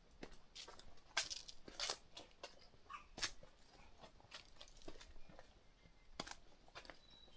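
A hiker's footsteps crunching and scuffing on a trail, an irregular run of short crunches with the loudest about a second and two seconds in.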